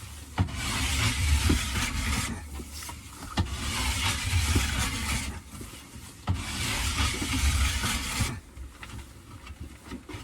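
A file held in an 88-degree edge-bevel tool rasping along a new splitboard's steel side edge. There are three long strokes of about two seconds each, and the last one ends about eight seconds in.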